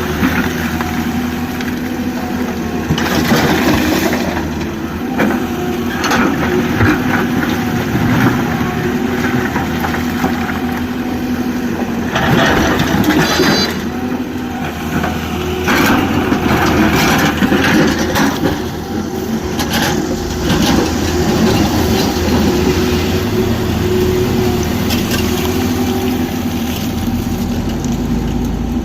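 Heavy diesel engine of an excavator running steadily, with repeated crunching and scraping of rock several times as the bucket digs and loads a tipper truck.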